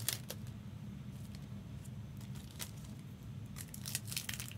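Crinkling and tearing of foil trading-card pack wrappers as packs are handled and opened, in short bursts just after the start and again near the end, over a steady low hum.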